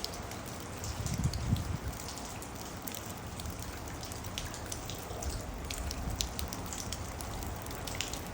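Rain falling steadily, an even hiss with many separate drops ticking, with a brief low rumble a little over a second in.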